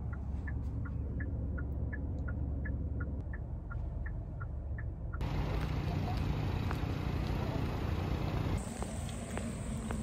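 Inside a car: the turn-signal indicator ticks in an alternating tick-tock, about three clicks a second, over low engine and road rumble. About five seconds in the ticking stops at a cut, leaving a steadier, hissier driving rumble.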